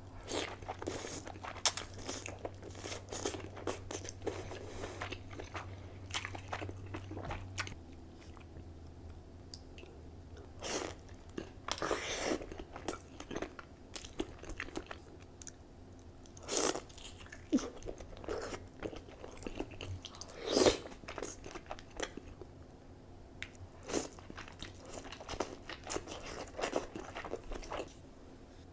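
Close-miked eating of a seafood boil: irregular crunchy bites and wet chewing, with sharp cracks among them.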